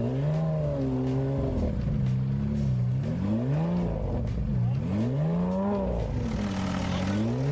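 Car engine revving over and over, its pitch rising and falling every second or so, with a hiss rising up near the end.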